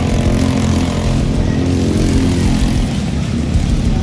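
Racing kart engine running hard at speed, its pitch shifting slightly up and down.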